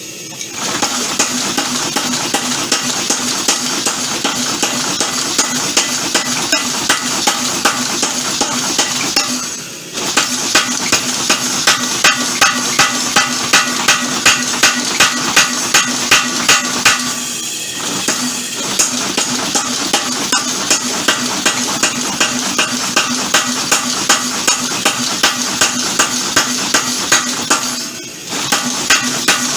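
Homemade power hammer running, its ram striking steel in a fast, steady rhythm over a constant motor hum. The blows stop for a moment three times, then start again.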